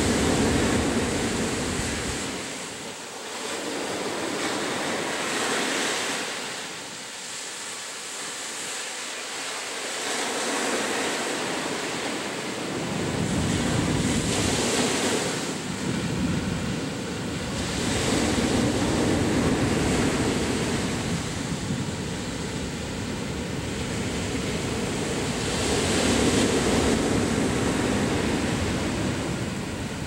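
Ocean surf breaking and washing up a sandy beach, swelling and ebbing every few seconds. Low wind rumble on the microphone comes and goes, dropping away for a stretch in the first half.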